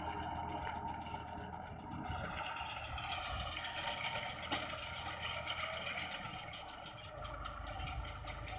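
A tractor engine running steadily while it drives a round baler, with light machine rattling over the engine.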